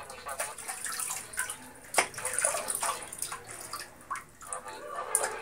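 Hot water running and splashing as someone washes, with a sharp knock about two seconds in.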